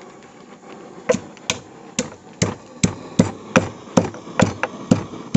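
Stone pestle pounding whole spices for garam masala in a heavy stone mortar. The spices are crushed coarsely, not to a full powder. The pestle gives steady, sharp knocks about two to three a second, starting about a second in.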